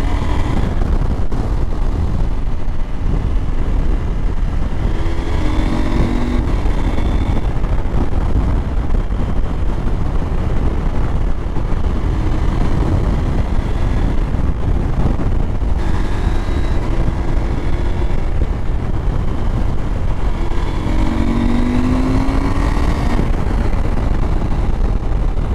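Husqvarna Norden 901's parallel-twin engine accelerating, its note rising in several short pulls, under heavy wind rumble on the microphone.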